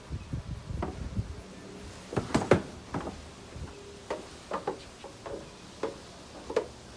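Irregular knocks and clatter, about a dozen sharp strikes at uneven intervals over a low rumble.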